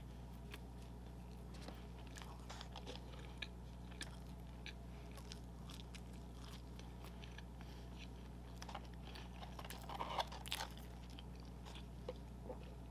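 A person chewing and biting food close to the microphone, with soft mouth clicks scattered throughout that become louder and busier about ten seconds in. A steady low hum runs underneath.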